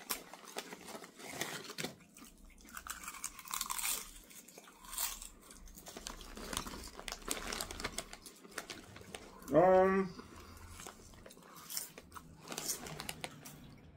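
Potato chip bag crinkling as hands reach into it, with crunching and chewing of chips. About ten seconds in, a short voice sound rising in pitch, the loudest thing here.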